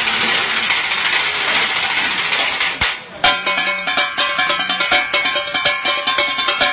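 Improvised percussion on an array of cooking pots, pan lids, tins and plastic buckets played as a drum kit. A dense rattling stretch breaks off briefly about three seconds in, then fast strikes with ringing metallic tones follow.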